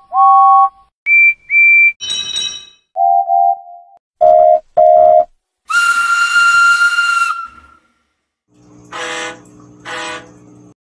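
Steam locomotive whistle sound effects played one after another: pairs of short toots at different pitches, then one long whistle with a hiss of steam about six seconds in. Near the end come two blasts of a deeper diesel locomotive horn.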